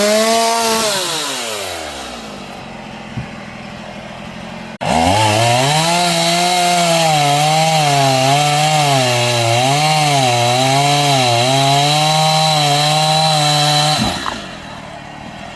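Two-stroke chainsaw. At the start it is running fast and its pitch falls away over about two seconds as the throttle is let off. About five seconds in it comes back abruptly at high revs, its pitch dipping and recovering over and over for about nine seconds before it drops off near the end.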